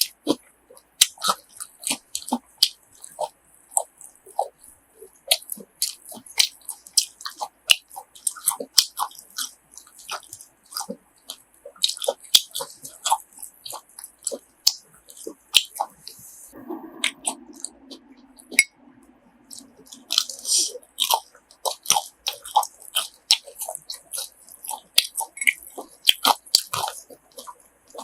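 Close-up chewing and biting of crunchy grilled pork offal, a dense run of irregular crunches.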